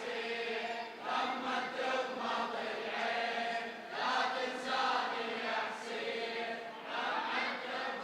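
Crowd of mourners chanting a Shia latmiyya refrain together in a drawn-out, mournful unison, swelling and fading phrase by phrase.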